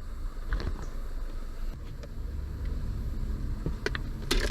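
A few short clicks and knocks of plastic dashboard trim being handled and pried loose, over a steady low background rumble.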